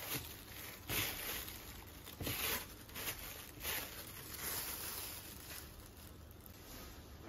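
Thin disposable plastic gloves crinkling and rustling in a series of short bursts as gloved hands press a sticky marshmallow-biscuit mixture in a dish; the rustling dies away about five seconds in.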